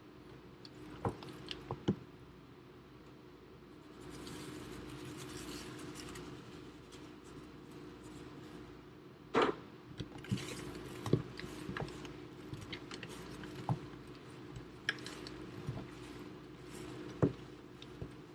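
Drained feta blocks being cut with a knife and the pieces packed into containers: soft squishing and scraping with scattered light knocks, over a steady low hum.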